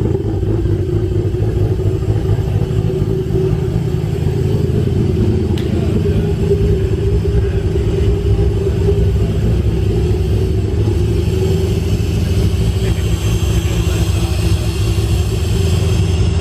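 Built single-turbo Toyota 2JZ straight-six with 272 cams and a straight-pipe exhaust, idling steadily shortly after its first start-up.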